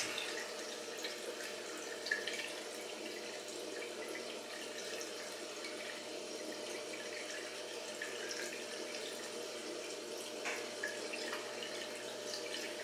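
Steady water noise from a reef aquarium's circulation: water trickling and bubbling, with a faint steady pump hum and a few small drips.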